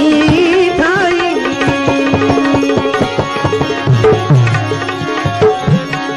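Bhajan accompaniment without vocals: tabla played in a steady rhythm under long held notes, with a melody that wavers in pitch during the first second or so.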